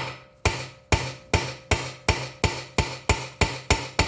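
Hammer blows driving the loose exhaust valve guide back into a Honda GCV160 engine's cylinder head: a steady run of sharp metallic strikes, about three a second, each with a short ring.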